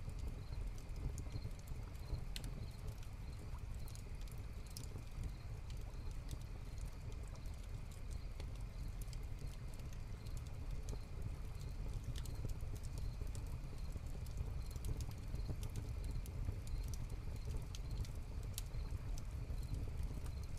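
Hearth fire crackling, with sharp irregular pops and snaps, over a steady low rumble. High crickets chirp steadily and faintly.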